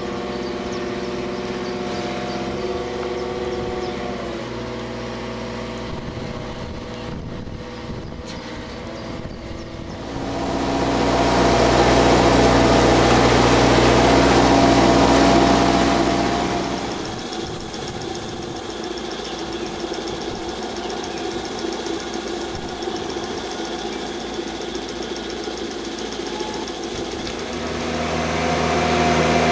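Engine of an aquatic weed-harvesting boat running steadily. Midway it grows louder and noisier for several seconds, then settles back to its steady run.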